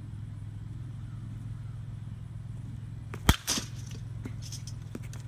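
A metal baseball bat cracks sharply against a ball in one swing about three seconds in, followed a moment later by a couple of softer knocks. A steady low hum runs underneath.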